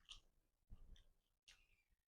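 Faint eating sounds near silence: a few soft mouth clicks and smacks from chewing dhido and chicken gravy, spaced about half a second apart.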